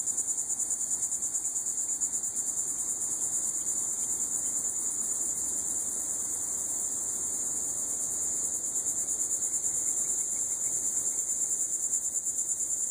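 A steady chorus of insects: a high buzzing that pulses evenly several times a second without a break.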